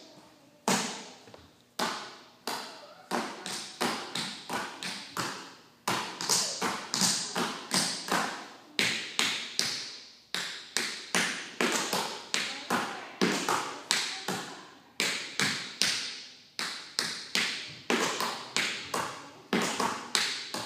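Metal taps on tap shoes striking a wooden floor: tap steps danced without music, in quick irregular phrases broken by short pauses.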